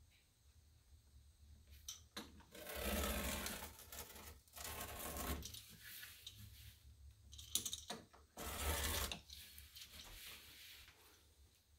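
Pounce wheel rolling along the lines of a paper sign pattern, perforating it, in several strokes of up to about a second and a half each with short pauses between.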